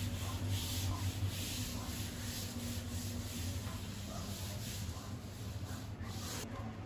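Soft, repeated rubbing and rustling handling noise over a steady low hum.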